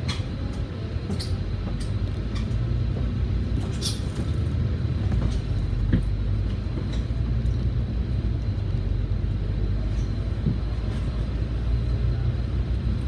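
Volvo B9TL double-decker bus's diesel engine, heard from inside the bus as it pulls away from a stop and gathers speed, with a steady low drone that grows stronger a few seconds in. Occasional sharp clicks and rattles sound over it.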